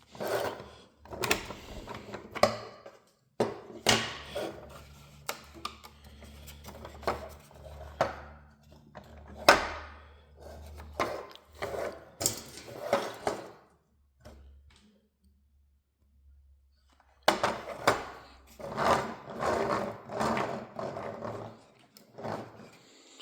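Irregular knocks, clicks and clatter of objects being handled and set down, with a low hum underneath in the first half and a pause of near silence about two-thirds of the way through.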